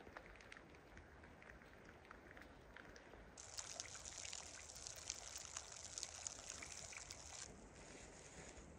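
Faint trickling and dripping water with scattered light ticks; a brighter hiss of water comes in about three seconds in and stops about four seconds later.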